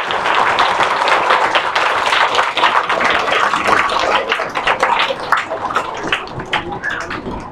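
A roomful of schoolchildren applauding, many hands clapping at once. The applause thins out to scattered claps near the end.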